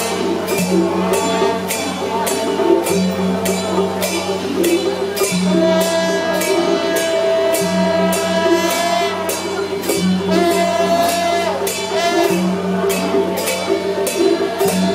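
Festival procession music: a steady, even beat of clashing percussion, about two to three strokes a second, over drums, with held melody notes on top.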